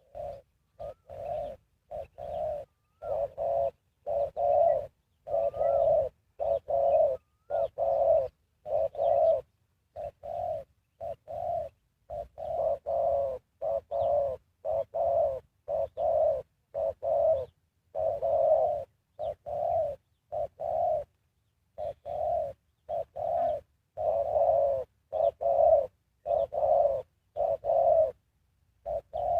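Spotted dove cooing over and over, a long run of short, low, hollow coo notes in quick phrases with brief pauses between them.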